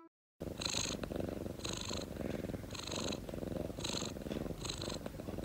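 Domestic cat purring close to the microphone, starting about half a second in. The purr runs steadily, with a brighter, breathier swell about once a second as the cat breathes in and out.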